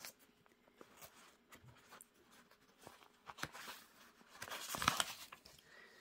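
Paper pages of a comic book being turned by hand: soft rustling and small taps, with the loudest rustle of a page about four and a half seconds in.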